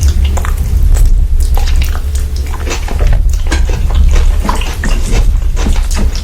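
Close-miked eating sounds: wet chewing and lip smacks with many short clicks, over a steady low hum.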